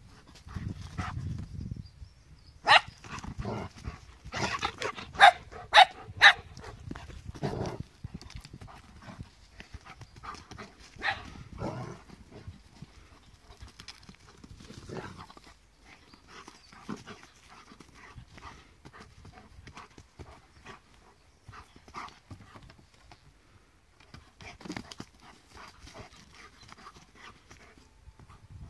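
Two dogs, a Hovawart and a miniature wire-haired dachshund, playing chase: a few loud, sharp barks between about three and six seconds in, then irregular scuffling and patter of paws in the grass.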